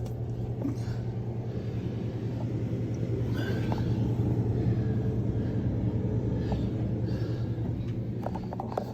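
Motorhome air conditioner running: a steady low hum with a rush of blowing air.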